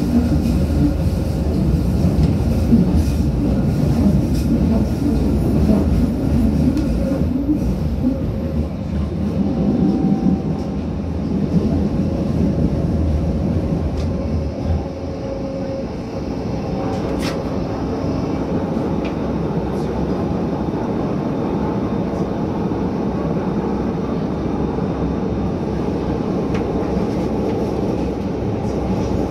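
Berlin U-Bahn train running, heard from inside the car: a steady rumble of wheels on rail that lessens a little about halfway through, with one sharp click shortly after.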